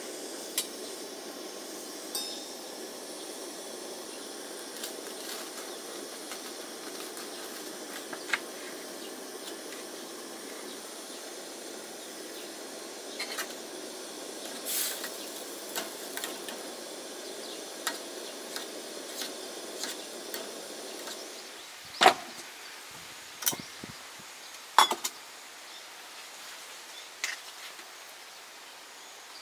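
Food sizzling in a pan on a camp stove, a steady hiss with occasional clinks and taps of cookware. The hiss stops about 21 seconds in, leaving a few sharp knocks.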